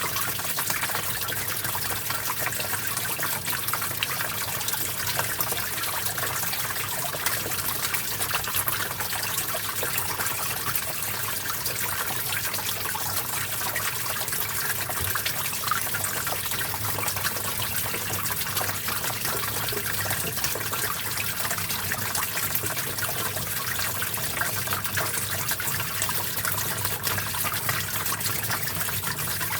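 A gentle stream of water flowing and trickling steadily, an even, unbroken splashing rush.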